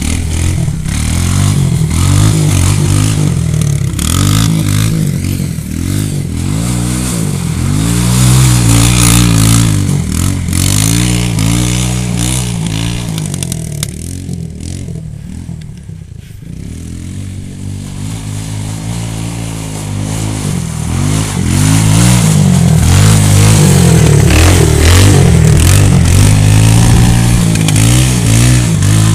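ATV four-wheeler engine revving up and down over and over as it churns through mud. It grows fainter about halfway through as the quad moves off across the field, then loud again as it comes back close.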